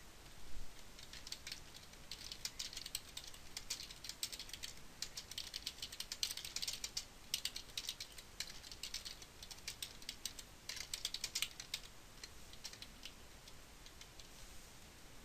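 Typing on a computer keyboard: runs of quick key clicks with short pauses between them, stopping near the end.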